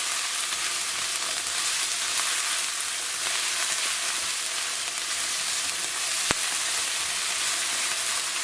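Sautéed onions and spices sizzling steadily in hot oil in a pan as they are stirred, with one sharp click of a utensil against the pan about six seconds in.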